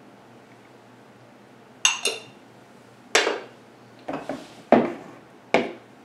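Small ceramic dishes and kitchen utensils knocking and clinking against a countertop and a plastic mixing bowl. After about two seconds without them, six sharp knocks come, the first with a short ring.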